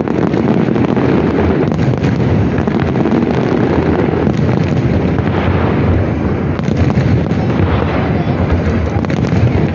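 Aerial fireworks shells bursting in a dense, continuous barrage of bangs and crackles over a heavy low rumble.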